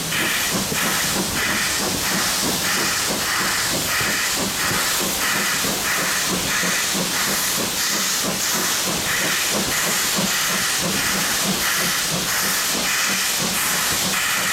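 Railway locomotive standing with a steady, loud hiss and a regular pulse about one and a half times a second.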